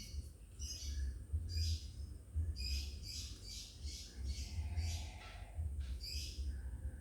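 Lovebirds chirping and squawking, a fast run of short, high calls, over a low rumble.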